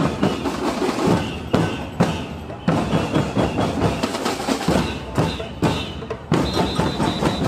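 Marching samba drum group playing on the move: surdo bass drums and snare drums beating a steady, accented rhythm. A high tone is tooted rapidly several times near the end.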